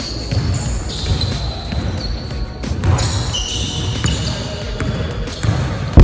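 Basketball bouncing on a gym floor, mixed with several short, high-pitched sneaker squeaks.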